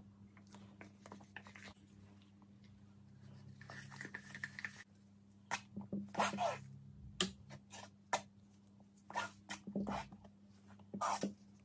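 Flat spatula spreading a thick coat of white acrylic pouring paint over a primed cotton canvas: short, soft scraping strokes at an irregular pace, beginning about halfway through, with a faint low hum underneath.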